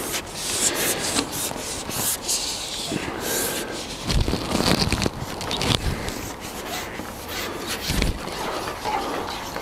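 Close handling noise: irregular rubbing and scraping, with a few dull thumps.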